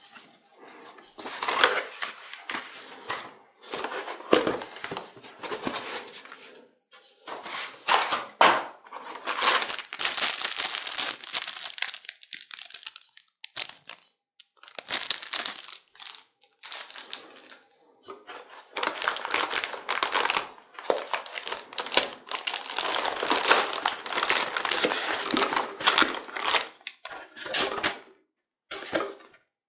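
Plastic packaging crinkling as it is handled: a clear plastic bag around a graphics-card support bracket and a metallic anti-static bag, in irregular bursts with short pauses.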